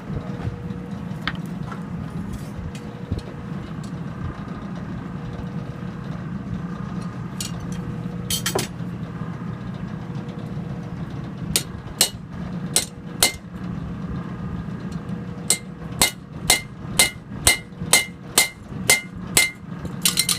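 Blacksmith's hammer striking iron on an anvil. A few scattered ringing blows come first, then a steady run of strikes about two a second through the last five seconds, over a steady low rumble.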